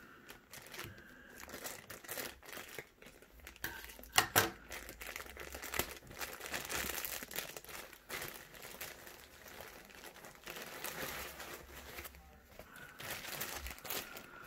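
Plastic packaging of a pack of disposable face masks crinkling and rustling as masks are pulled out of it, with a few sharper crackles about four seconds in.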